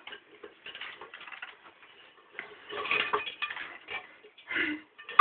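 Green iguana's claws scraping and scrabbling on a metal pot and lid, with pots and dishes clattering under its weight, louder about three seconds in, and a sharp clank at the very end.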